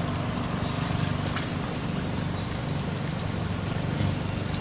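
Insect chorus: a steady, high-pitched shrill drone, with a second, flickering insect trill just beneath it.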